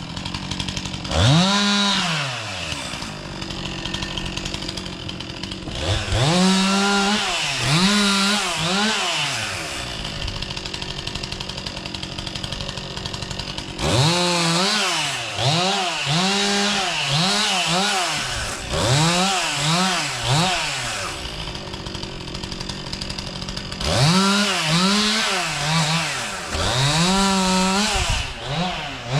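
Chainsaw revving in repeated quick throttle blips, its engine pitch rising and falling, in four spells separated by steadier idling.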